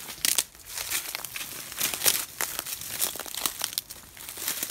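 Dry grass, dead leaves and brush crackling and snapping close to the microphone as people push and crawl through thick undergrowth, in many quick, irregular crackles.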